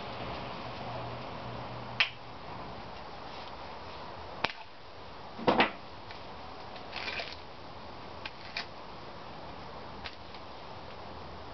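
Hands working a plastic toner bottle, unscrewing its cap, setting the cap down and screwing on a pour spout, giving scattered sharp clicks and taps over a steady background hum. The loudest is a quick double tap about halfway through.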